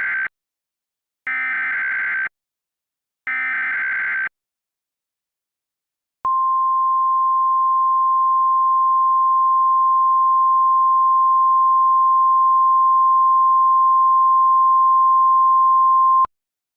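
Emergency Alert System SAME header: the last part of one one-second burst of data tones, then two more bursts a second apart. After a short gap comes the National Weather Service 1050 Hz warning alarm tone, one steady high tone held about ten seconds that cuts off sharply, signalling that a warning follows.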